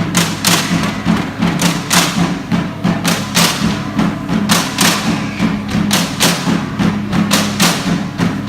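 Background pop music with a steady drum beat, about two beats a second, over a sustained bass line.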